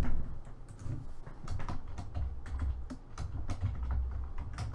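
Computer keyboard typing: irregular key clicks as a short entry is typed, over a low steady hum.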